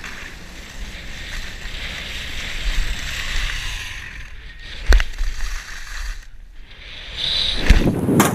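Skis sliding over packed snow with wind rushing across the microphone, and a sharp knock about five seconds in. The rush grows louder near the end.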